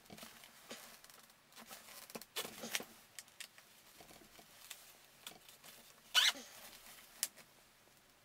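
Gloved hands handling and pulling at an electric unicycle's metal suspension frame: scattered soft knocks, rubbing and scraping, with a short squeak that drops in pitch about six seconds in.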